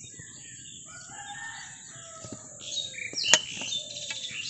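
A rooster crowing, with small birds chirping. A steel tumbler presses and knocks on a steel plate as boiled potatoes are mashed, with one sharp metal clink about three seconds in, the loudest sound.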